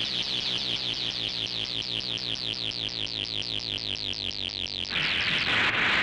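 Electronic sci-fi sound effect: a rapid, even train of high-pitched falling chirps, about six or seven a second, marking a monster being dissolved by an energy attack. About five seconds in it gives way to a loud hissing rush as the explosion begins.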